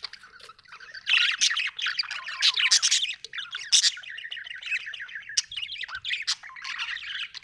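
Budgerigars chattering and chirping in a rapid warble, starting up about a second in.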